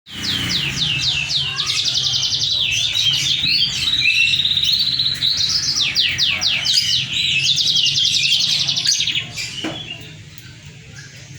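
Moken, a yellow-fronted canary × domestic canary hybrid, singing a loud, fast, varied song of rapid trills and chirps that gets quieter near the end.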